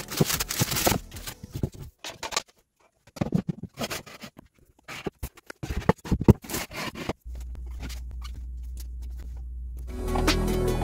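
A plastic-and-mesh onion bag crinkling and rustling in irregular bursts, with light knocks, as onions are taken out and set into a wooden crate. A steady low hum takes over for the last few seconds.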